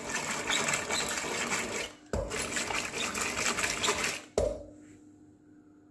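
Hand-cranked rotary hand blender churning cooked dal and tomatoes in an aluminium pressure cooker, a wet, sloshing churn as the beaters mash them smooth. It breaks off briefly about two seconds in and stops about four and a half seconds in, leaving near silence.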